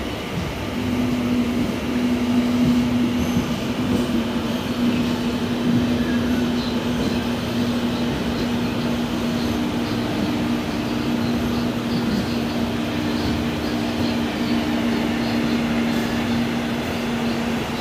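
Two Indian Railways electric trains running side by side, heard from inside the MEMU: steady rail running noise with a steady electric hum. A second, slightly higher hum comes in about halfway and stops near the end.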